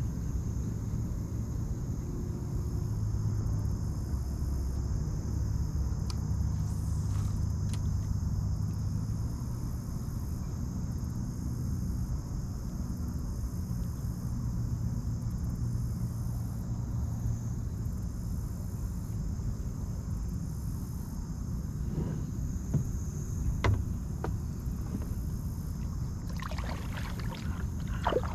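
Kayak under way on the water, with a steady low hum that eases off about eighteen seconds in and a few light knocks near the end. Insects buzz steadily in the background.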